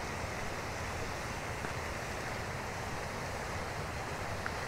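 Steady rushing outdoor noise with no distinct events, only a faint tick near the end.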